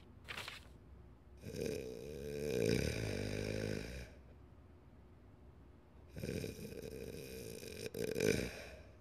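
A man snoring: two long snores, each two to three seconds, with a pause of about two seconds between them.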